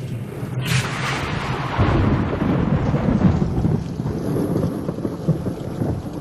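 Rolling thunder over rain: a sharp onset about a second in, a low rumble that swells and then slowly fades.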